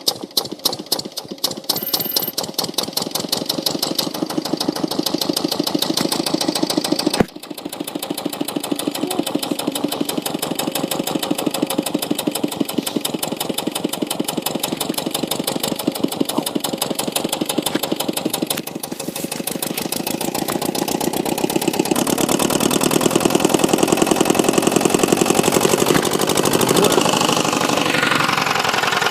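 An engine running with a fast, even beat of separate firing pulses, quickening just after it catches. There is a sudden break about seven seconds in, and it runs louder in the later part.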